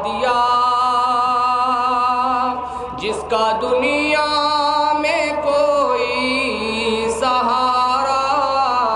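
A man's voice singing unaccompanied into a microphone, in long, drawn-out melodic phrases with a short break for breath about three seconds in. It is a naat, a devotional chant in praise of the Prophet Muhammad.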